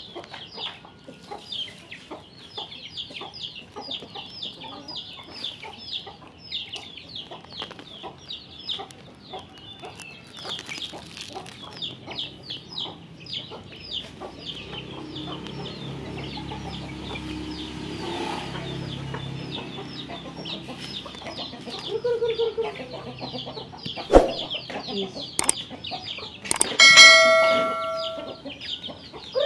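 Chickens: a steady stream of quick, high peeping cheeps, several a second, with two sharp knocks late on and then a rooster crowing once, loud, near the end.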